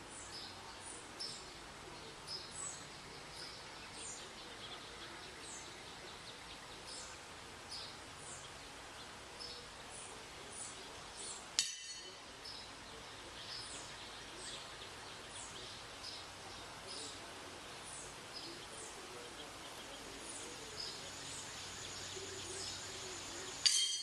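Backyard birds chirping: many short, high chirps that fall in pitch, repeating throughout over a faint steady outdoor background. A sharp click comes about halfway through and another just before the end.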